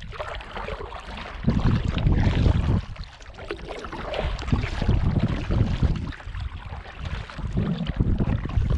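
Kayak paddle splashing into the water and water lapping at a sit-on-top fishing kayak's hull, with wind buffeting the microphone in gusts that swell and fade a few times.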